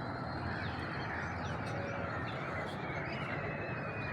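Birds chirping in short calls over a steady background noise.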